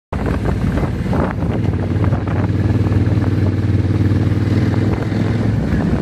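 Motorcycle engine running at a steady note, with wind buffeting the microphone. The engine note falls away about five and a half seconds in.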